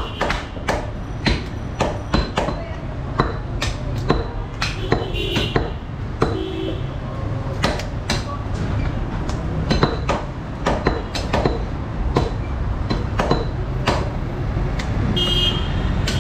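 Butchers' cleavers chopping beef on wooden log chopping blocks: sharp, irregular chops several times a second from two blocks at once, over a steady low hum.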